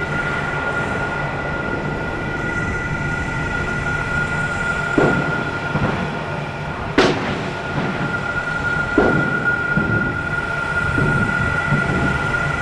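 A steady low mechanical rumble with a constant high-pitched whine over it, broken by sharp knocks about five, seven and nine seconds in, like a rail vehicle running.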